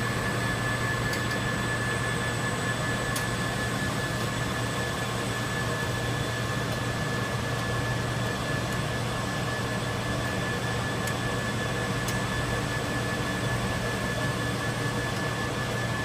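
Rubber extrusion and microwave vulcanization production line running: a steady whir of motors and fans with a constant high whine and a low hum, and a few faint clicks.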